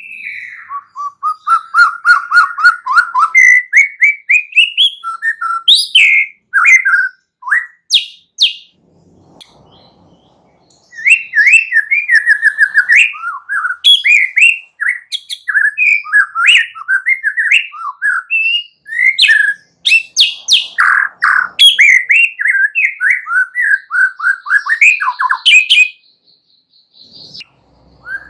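Young wild white-rumped shama singing a long, fast, varied song of clear whistles and quick chattering phrases. It pauses for a couple of seconds about nine seconds in, and again near the end.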